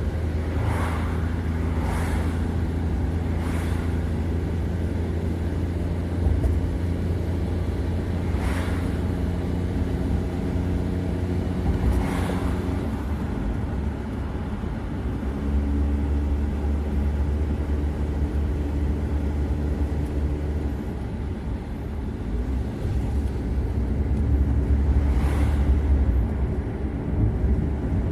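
Car driving along a road: a steady low engine and road drone whose tone shifts about halfway through, with a few brief sharp knocks.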